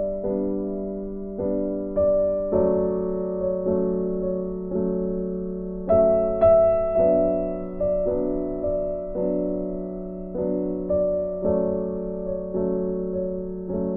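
Slow piano music. Notes or chords are struck about once a second and left to ring and fade.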